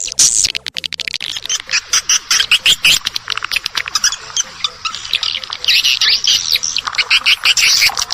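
Edible-nest swiftlets twittering in a dense, unbroken chorus of rapid high chirps and clicks. It is a swiftlet call recording of the kind played to lure swiftlets into a nesting house.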